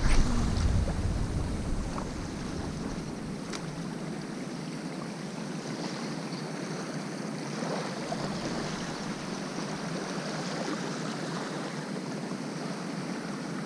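Waves washing on a beach, an even rush of surf, with wind rumbling on the microphone for the first couple of seconds.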